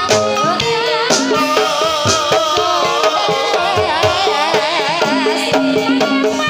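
Javanese gamelan accompaniment for a kuda kepang (ebeg) horse dance: regular hand-drum strokes under held metallophone notes, with a high melody that wavers up and down over them.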